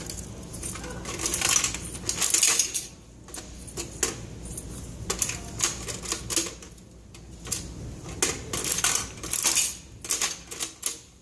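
A coin-operated gumball machine being worked: a string of clicks and rattles from coins going in and the crank being turned.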